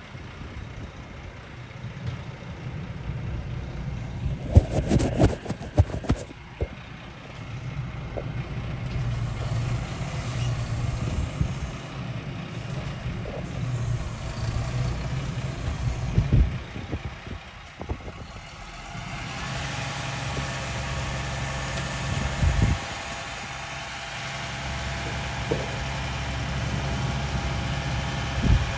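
Garbage truck engine running while it empties a dumpster, with loud metal bangs: a burst of clattering about five seconds in, then single bangs. From about nineteen seconds in the engine speeds up with a whine.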